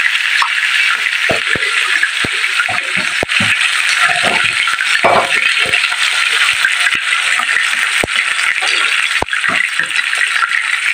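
Whole tilapia frying in hot oil in a pan: a steady, loud sizzle with frequent sharp, irregular pops and crackles of spitting oil.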